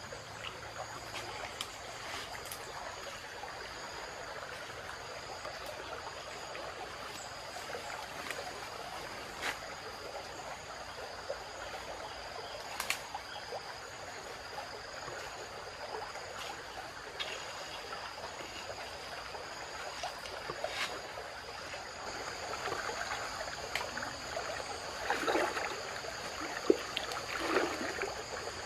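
Scattered sharp snaps and rustling of bamboo brush as someone pushes through it, over flowing river water and a steady high-pitched whine. About three-quarters of the way in, louder irregular splashing starts as he wades into the river.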